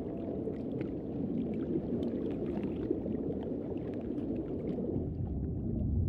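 Underwater reef ambience: a steady low rumbling wash of water with faint, scattered crackling clicks.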